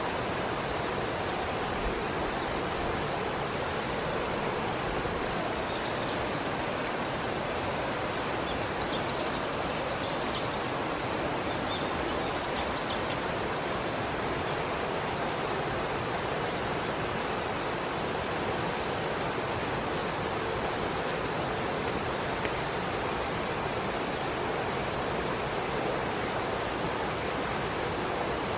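A steady chorus of insects making a constant high buzz over an even hiss, likely of flowing water. The highest part of the buzz fades about two-thirds of the way through.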